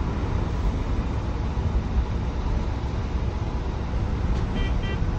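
Scania tipper truck's diesel engine running steadily, a low rumble heard from inside the cab. Two short high beeps sound near the end.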